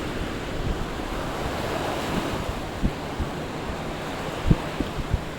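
Surf washing onto a beach: a steady rushing hiss that swells about two seconds in. Wind gusts thump on the microphone a few times near the end.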